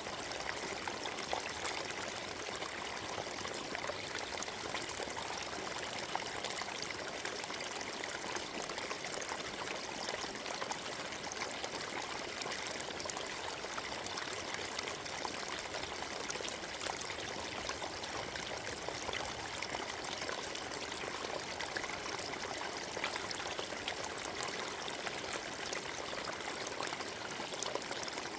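Forest stream running and trickling over rocks, a steady rushing babble that stays even throughout.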